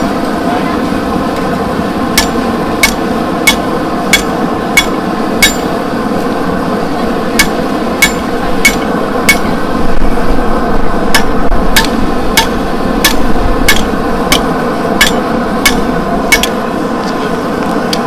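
Hand hammer striking hot steel on an anvil while a knife blade is forged from scrap metal. The blows come at a steady pace of about one and a half a second, with one short pause. A continuous steady noise runs under them.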